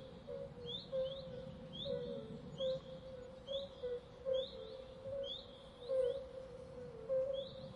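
Birds calling: short, high, rising chirps repeated about once a second over a lower run of short repeated notes.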